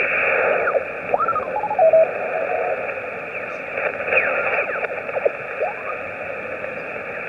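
Yaesu FT-817 HF receiver in SSB mode giving steady band hiss, with scattered whistling tones sliding up and down in pitch as signals are tuned through on 20 metres.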